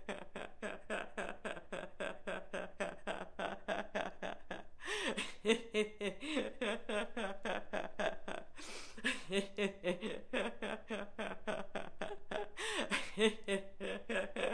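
A woman laughing heartily and without a break, deliberate laughter-yoga laughter in quick ha-ha pulses about four to five a second, with gasps for breath between bouts.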